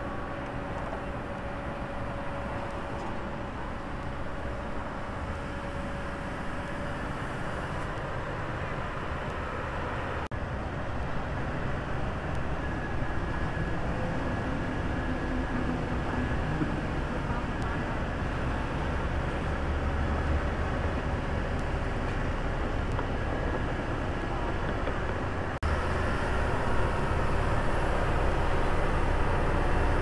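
Kobelco hydraulic excavator's diesel engine running steadily under load as it swings and lowers a precast concrete box culvert section slung from its bucket. The sound changes abruptly twice, about a third and five-sixths of the way in, and is louder in the later part.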